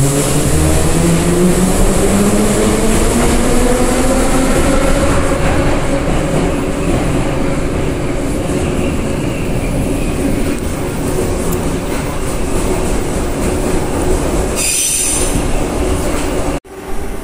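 Moscow metro car 81-717.5 in motion: the traction motors' whine rises in pitch as the train accelerates away from the station, then holds steady under the rumble of the running train. A brief high squeal comes about 15 seconds in, and the sound cuts out abruptly just before the end.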